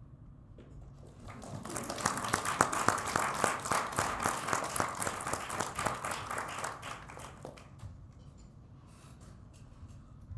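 Small audience applauding, swelling up about a second in and dying away after about six seconds of clapping.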